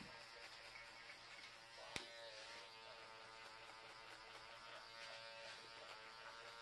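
Electric hair clipper buzzing faintly and steadily while it trims hair over a comb around the ear, a clipper-over-comb shingling cut. A sharp click comes about two seconds in.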